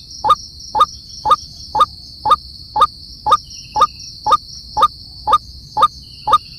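An animal call, a short note repeated at an even pace about twice a second, over a steady high-pitched insect drone.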